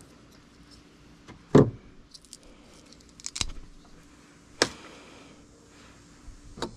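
A few sharp clicks and knocks from tools and wire being handled. The loudest comes about a second and a half in, with a quick cluster of clicks around three and a half seconds and single knocks later on.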